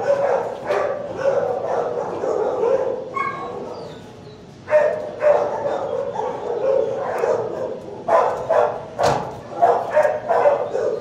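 Dogs barking and yipping over one another in a shelter kennel block, a dense run of repeated barks with a lull about three to four seconds in. A single sharp knock sounds about nine seconds in.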